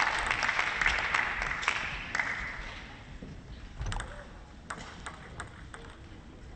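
Applause from the arena crowd dies away over the first few seconds. Then a few sharp, separate ticks follow, typical of a table tennis ball bouncing.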